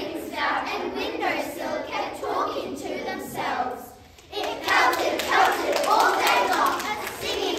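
A class of children performing body percussion: voices in unison over hand claps. After a brief lull about four seconds in it gets louder, with many claps.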